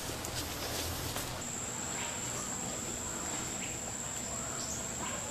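Outdoor brush ambience: a few faint ticks, then from about a second and a half in a steady high-pitched insect drone over soft background noise.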